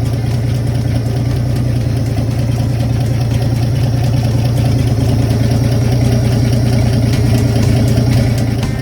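Engine of a 1948 GMC custom truck idling steadily with a freshly rebuilt Rochester single-barrel carburetor.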